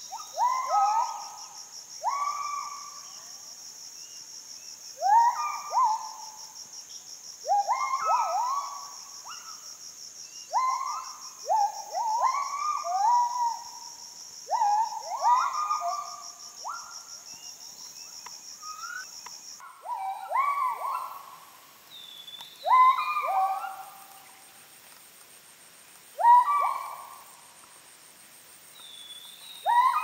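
Müller's gibbons (Bornean gibbons) calling: a long series of loud whooping notes, each rising in pitch, often in quick pairs or triples, one or two a second, spacing out toward the end.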